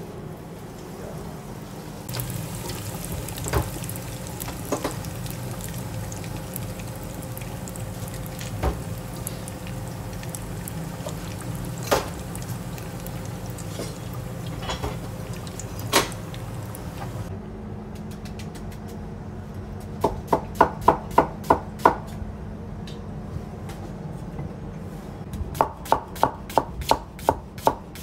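Pork cutlet deep-frying in hot oil: a steady sizzle with scattered pops and clicks. Later, two quick runs of about eight strokes each, roughly four a second: a large kitchen knife slicing onion on a wooden cutting board.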